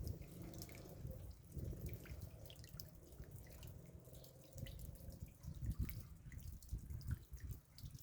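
Raindrops dripping, a scatter of small irregular ticks, over a low rumble.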